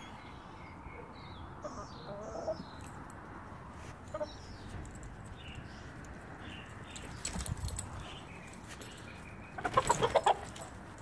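Domestic hen clucking softly now and then, then, about ten seconds in, a short loud burst of squawking and wing-flapping as the dog gets to her: an alarm reaction.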